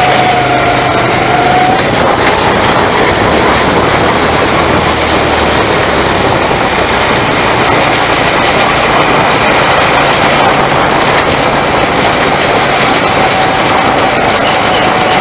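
Go-kart engine running at speed as the kart laps the track, under a steady rushing noise that stays loud and even throughout.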